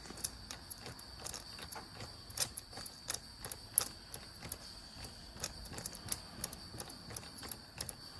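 Mamod Brunel live-steam locomotive running: a run of light, irregular clicks and ticks, a few louder ones in the middle, over a faint steady high tone.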